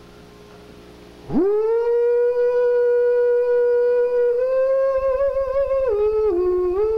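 A man's high singing voice in a slow spiritual: after a brief hush, a note swoops up about a second in and is held long and steady, then lifts a little with a slight waver, steps down and climbs back near the end.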